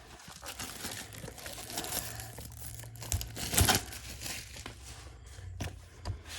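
The Apple Magic Keyboard's packaging being torn open and handled: a crinkling, tearing rustle with scattered sharp crackles, the loudest about three and a half seconds in.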